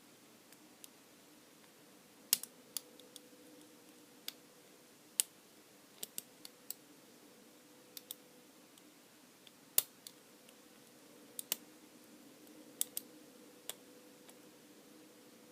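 Small sharp metallic clicks and taps at an irregular pace, from lock picks and the pins and core of a small Abus lockout padlock being handled, over a faint steady hum.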